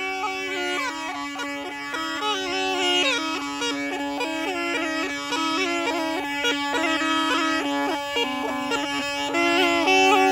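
Been (pungi), the snake charmer's gourd reed pipe, playing a winding melody over a steady drone.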